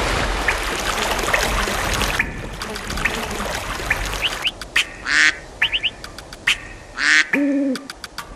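A steady rush of water that cuts off about two seconds in, followed by short bird chirps and a few louder bird calls.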